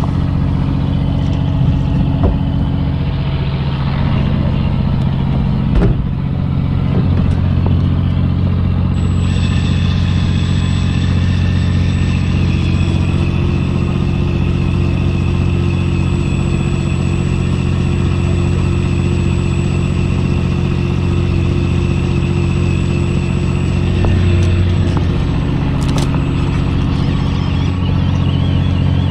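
A fishing boat's engine running steadily, a low drone. A steady high whine joins it about nine seconds in and stops near twenty-five seconds, with a couple of brief knocks.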